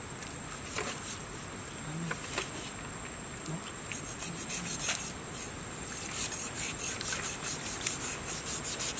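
Steel cleaver scraping and slicing along a large salmon's rib bones as the fillet is cut away: short rasping strokes that come thicker from about six seconds in, over a steady high-pitched whine.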